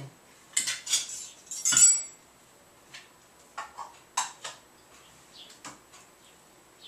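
A metal spoon clinking and scraping against a dish while food is scooped out: a few sharp clatters in the first two seconds, then lighter scattered taps.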